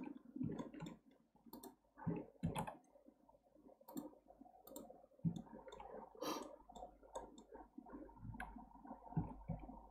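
Faint computer mouse clicks and keyboard key presses, scattered at an irregular pace.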